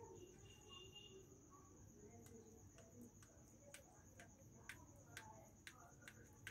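Near silence: a faint, steady high trill of crickets, with a few soft clicks as a knife scoring the sweet touches its steel plate.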